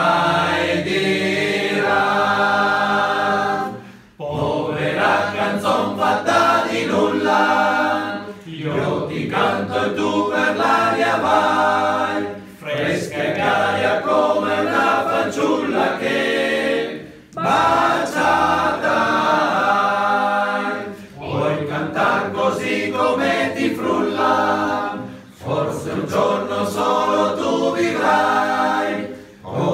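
A group of men singing an Italian love song together, unaccompanied, in phrases of about four seconds with short breaks for breath between them.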